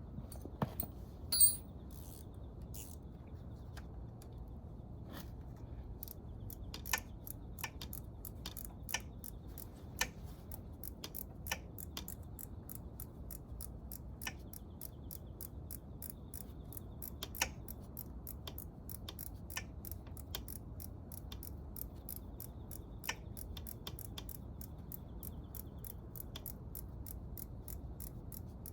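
Sharp, irregular metallic clicks and ticks of hand tools working on a motorcycle engine during disassembly, over a low steady hum, with one louder clink about a second and a half in and the clicks coming more often in the second half.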